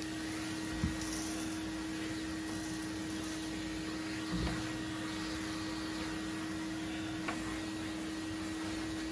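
Vacuum cleaner running steadily with a constant hum, sucking sawdust off a freshly sawn bass drum shell; a few faint knocks along the way.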